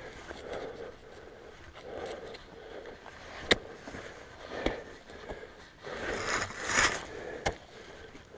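Snow and dry grass crunching and scraping as a climber's bare hand, boots and ice axe work up a steep snowy slope, with a few sharp clicks and a louder, longer scrape about six to seven seconds in.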